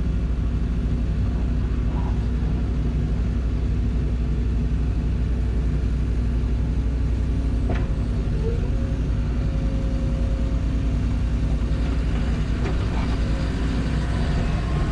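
Excavator's diesel engine running steadily under work, with a single sharp knock about eight seconds in and faint creaking near the end.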